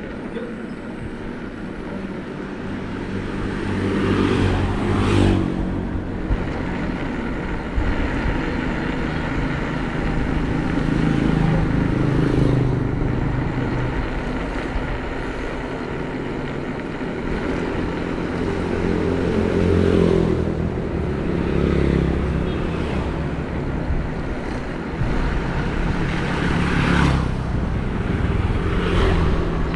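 Bicycle tyres rolling on a road, with motor vehicles going past several times, their engines swelling up and fading away.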